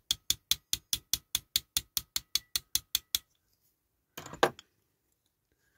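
A small hammer lightly tapping small parts of a diecast toy truck down into place: a run of quick, evenly spaced taps, about five a second, stopping a little over three seconds in. About a second later comes a brief, louder clatter and knock.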